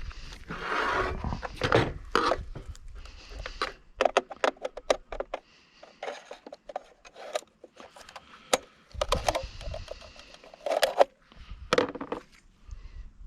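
Irregular clinks, knocks and scrapes of metal parts and hand tools as a safe door is taken apart by hand.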